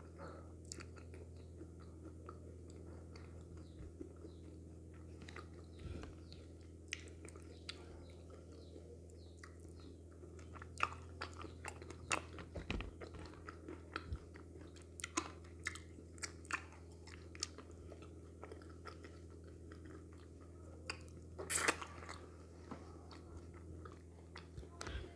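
Close-miked chewing and mouth sounds of a person eating okra soup and fish by hand, with many short, sharp clicks, the loudest about three seconds before the end, over a steady low hum.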